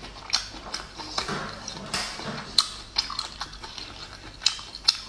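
Close-up chewing of braised abalone: wet mouth smacks and a string of sharp, irregular clicks, the loudest about two and a half seconds in and near the end.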